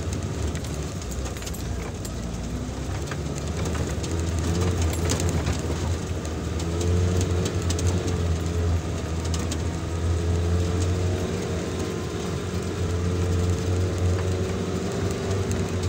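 Off-road vehicle's engine running steadily as it crawls along a rough dirt track, heard from inside the cabin, a deep drone with a faint wavering whine above it and a few light knocks.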